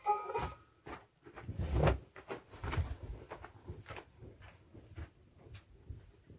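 Irregular footsteps and scuffs on loose stones and rubble, with a few heavier low thuds about two seconds in, then trailing off.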